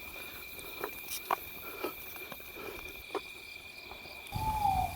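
Night chorus of crickets, a steady high trill, with a few faint clicks. Near the end comes a short call of about half a second, sliding down in pitch.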